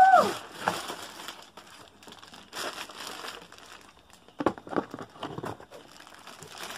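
Clear plastic packaging bags crinkling and rustling as wrapped toy pieces are handled, in scattered bursts that are busiest around the middle. It opens with the tail of a high, rising vocal cry.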